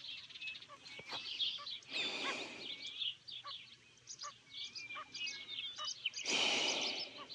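Several small birds chirping and trilling, an evening chorus of many short high calls. Twice, about two seconds in and near the end, a brief rush of noise rises over them.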